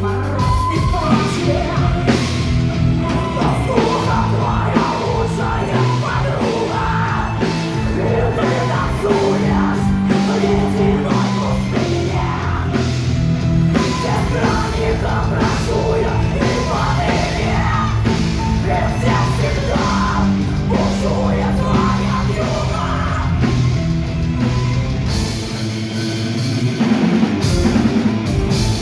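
Loud heavy rock music from a band: drum kit and guitars with sung and shouted vocals. The low end drops out briefly near the end.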